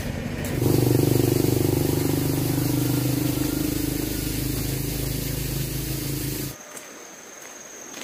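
Small motorbike engine running, with a steady hiss of wind and road noise over it. The sound swells about half a second in, eases slowly, then cuts off suddenly.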